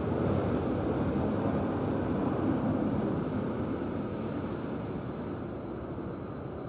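City street background noise: a steady rumble of traffic that slowly fades over the few seconds, with a faint high-pitched whine.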